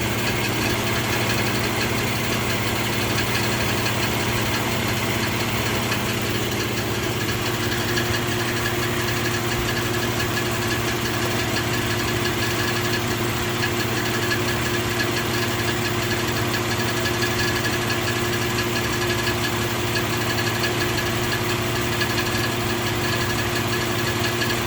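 2004 Infiniti G35's 3.5-litre V6 idling steadily with a ticking noise.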